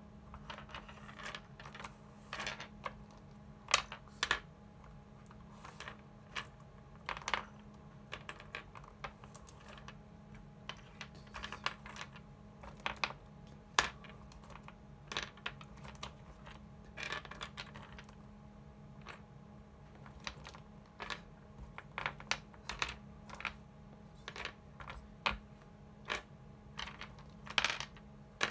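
ELNA 680 µF 35 V aluminium electrolytic capacitors being sorted by hand, their metal cans clicking against each other and tapping down onto the desk one by one in an irregular patter, with a few louder clacks.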